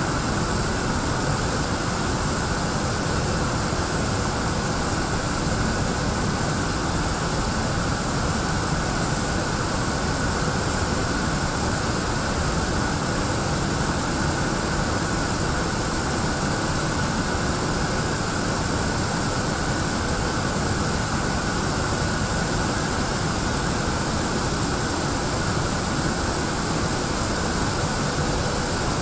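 Steady, unbroken noise of an automatic train-wash machine at work: water spraying and large rotating brushes scrubbing a high-speed train.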